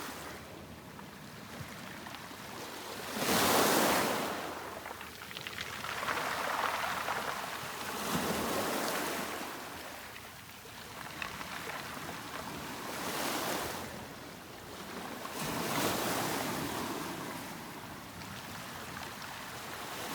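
Sea waves breaking and washing in, swelling and ebbing every few seconds, the loudest about three and a half seconds in.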